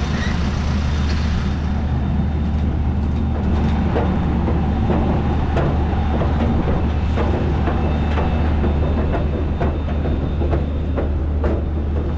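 A steady low mechanical hum with frequent light rattles and knocks through it.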